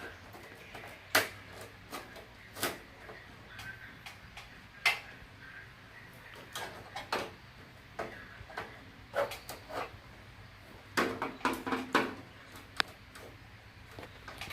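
Irregular light clicks and knocks of hard objects being handled, a dozen or so, with a quick cluster of them about eleven seconds in, over a faint steady hum.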